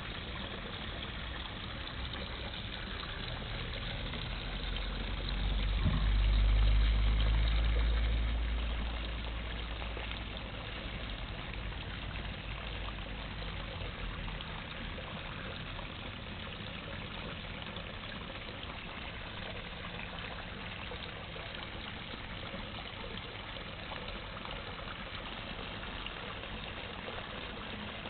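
Steady trickle of running water at a koi pond. A low rumble swells and fades about six to nine seconds in.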